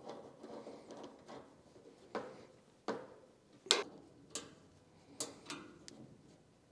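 Handling noise of a heavy battery cable being fitted to a server rack battery's terminal: irregular light clicks and knocks of the cable lug and hardware against metal, the sharpest nearly four seconds in, over a soft rustle.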